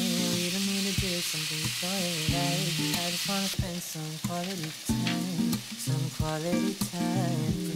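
Sliced pork and onion sizzling in a small square frying pan while stirred with wooden chopsticks; the sizzle cuts off suddenly about three and a half seconds in. Light clicks of metal tongs in a glass jar of kimchi follow, over background music.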